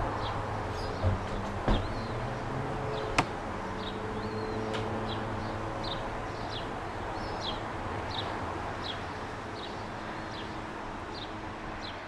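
Gull chicks peeping: short, high, thin calls repeating about one to two a second over a low background hum, with a sharp click about three seconds in.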